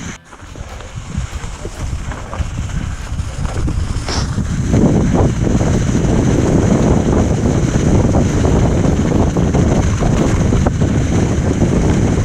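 Wind buffeting the microphone of a camera on a moving mountain bike, heard as a low rushing rumble. It drops out briefly near the start, then builds to a steady loud rush from about four seconds in.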